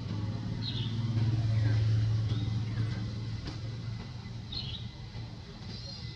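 Low engine hum of a passing motor vehicle, swelling to its loudest a second or two in and then slowly fading. A few short high chirps sound over it.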